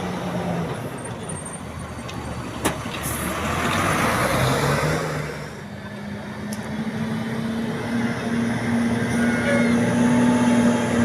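Road traffic going past: one vehicle passes with a swell of road noise about four seconds in. Then a heavy engine's steady drone comes in and grows louder as it approaches.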